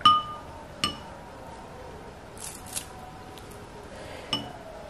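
A spoon clinking against a glass bowl of sambar three times: hard at the start, again about a second in, and once more near the end. Each strike rings briefly.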